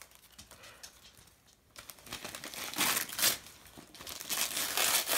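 Gift wrapping paper tearing and crinkling as a child unwraps a present: quiet at first, then a run of rustles and short rips from about two seconds in, loudest a little after three seconds.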